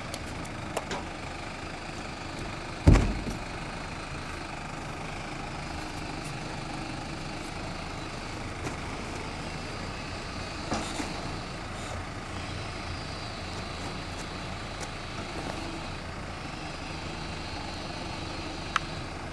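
Case IH JXU 105 tractor's diesel engine idling steadily, with a loud thump about three seconds in and a few light clicks.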